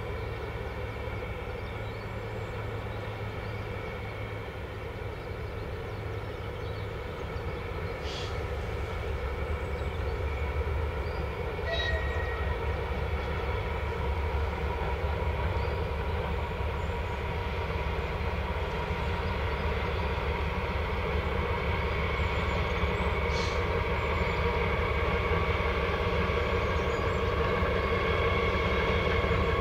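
Class 08 diesel shunter's six-cylinder diesel engine running steadily under load as it hauls two coaches, a low drone with a steady tone that grows gradually louder as the train draws nearer.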